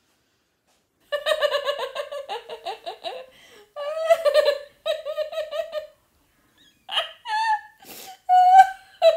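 A woman laughing hard in high-pitched, rapid ha-ha pulses, starting about a second in and coming in several fits with short breaks between them, with a sharp breath near the end.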